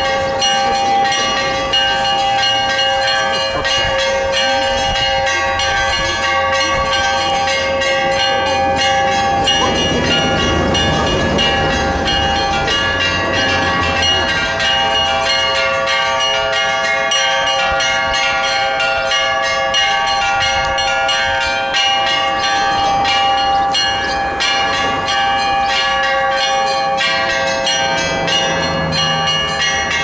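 Orthodox church bells ringing continuously in a bell tower: several bells of different pitches struck over and over in quick succession, their tones overlapping and ringing on.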